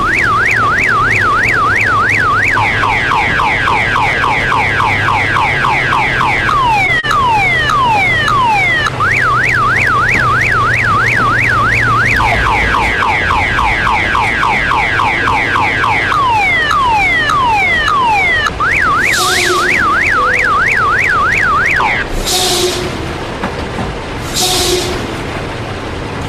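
Electronic multi-tone alarm siren cycling through its patterns: a fast up-and-down warble, then a quick run of falling chirps, then slower falling sweeps, repeating three times. A low diesel engine hum runs under it for the first half, and near the end come three short hisses of air.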